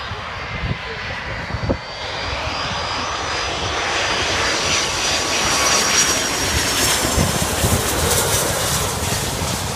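Jet engines of an American Airlines Boeing 757 on final approach, a rushing roar that grows louder as it passes low overhead, with a high engine whine on top that drops slightly in pitch.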